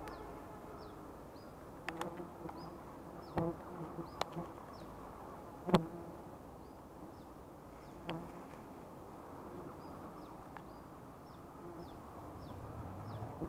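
Wild honeybees buzzing steadily around their nest, broken by a few sharp knocks and rustles, the loudest about six seconds in. A bird repeats short, high, falling chirps throughout.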